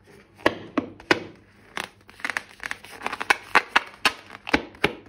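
Irregular sharp crackles and crinkling, about a dozen snaps, from slime-making materials being squeezed and handled.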